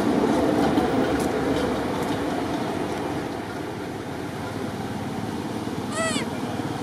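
Steady low rumbling noise that eases off over the first few seconds, with one short, high-pitched, chirp-like call about six seconds in.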